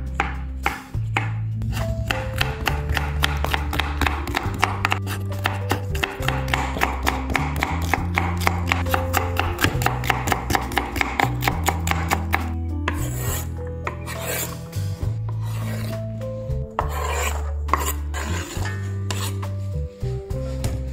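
Rapid, regular rasping strokes, about four or five a second, then a few slower, longer scraping strokes, over background music with a steady bass line.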